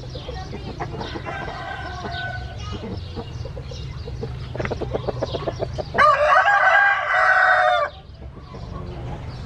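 Roosters crowing and clucking: a fainter crow about a second in, a quick run of clucks midway, then one loud crow of about two seconds near the end, over a steady low hum.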